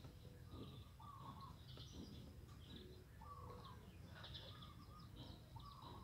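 Faint bird chirps, short calls coming about once a second, over a steady low rumble.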